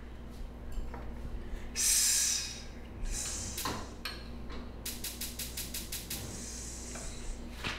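A man's sharp, hissing breath out about two seconds in, a forced exhale while flexing into a pose. A knock and a quick rattle of about eight clicks follow a couple of seconds later.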